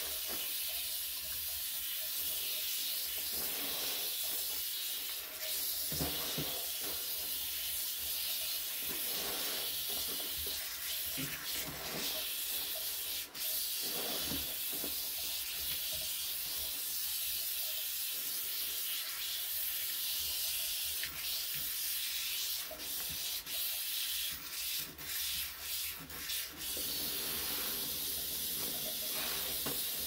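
A steady high hiss, like rubbing or sanding, with a run of brief breaks and faint clicks in the later part.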